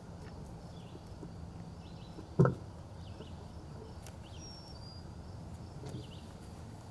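Outdoor ambience with birds chirping faintly, short calls repeating about once a second, and a single dull thump about two and a half seconds in.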